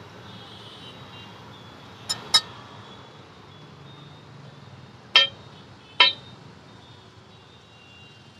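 Metal spatula striking a large flat metal griddle (tawa) while an aloo tikki is pressed and broken up: sharp ringing clinks, two in quick succession about two seconds in, then two more about a second apart past the middle, over a steady low background noise.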